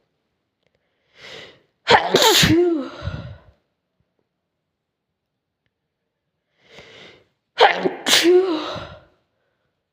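A person sneezing twice, about six seconds apart, each sneeze starting sharply and trailing off over about a second. Each is preceded by a short, faint inhale.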